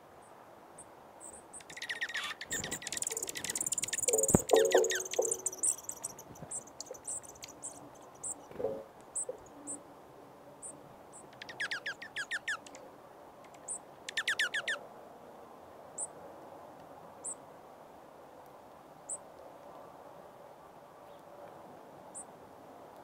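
Small songbirds calling: high, thin chips repeated every second or two, a burst of twittering about two seconds in, and two quick trills near the middle. A sharp knock comes about four seconds in.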